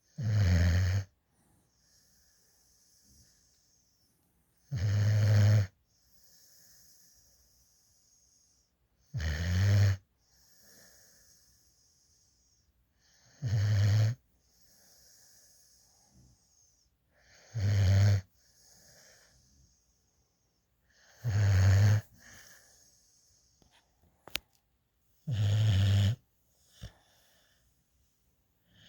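A sleeping Black Mouth Cur–Labrador mix puppy snoring: a low snore on each breath, about every four seconds, with soft breathing between the snores.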